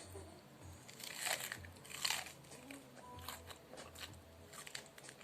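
Close-up eating sounds: crunchy bites and chewing, with the loudest crunches about one and two seconds in, then lighter chewing.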